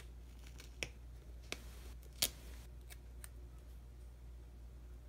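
Fingernails and fingertips handling a paper sticker on a planner page: a few light clicks and a brief paper rustle around the middle, over a steady low hum.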